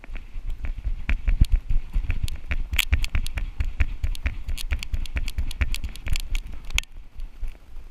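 Giant schnauzer running, its footfalls and the jolting of a harness-mounted camera heard as rapid, irregular thuds and knocks, which stop near the end.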